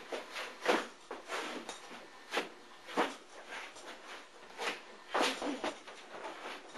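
Punches landing on a hanging heavy bag in irregular combinations, about a dozen hits with the hardest ones about a second in, at about three seconds and about five seconds in.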